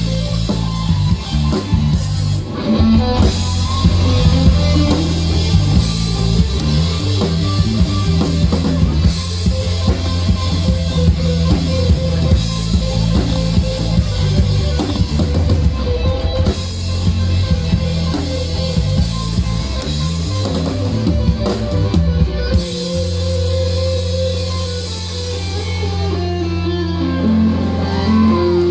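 Live rock band playing an instrumental passage with drum kit, bass guitar and electric guitar. Near the end the drums drop away and the band holds a steady low chord.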